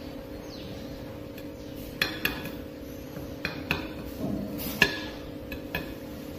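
A plastic poster-paint bottle and its cap knocking against a stainless steel plate as thick paint is tapped out: about half a dozen light clinks, each with a brief metallic ring, starting about two seconds in.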